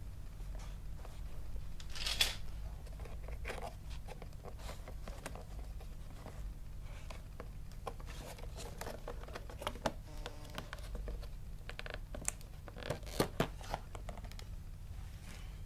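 Handling noises: rustling and scraping with scattered small clicks, a louder scrape about two seconds in and a quick run of sharp clicks near the end, over a steady low hum.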